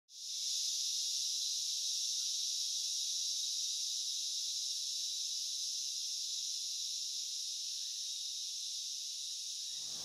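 Steady, high-pitched chorus of insects from a rainforest ambience track, fading in at the start.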